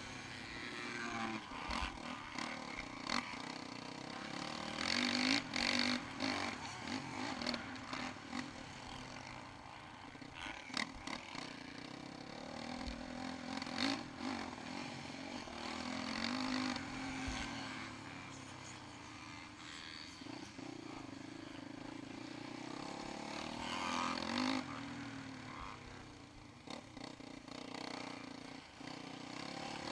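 Yamaha YZ450F's single-cylinder four-stroke engine revving up and down again and again as the bike is ridden hard round a dirt motocross track, with wind noise and knocks from the rough ground.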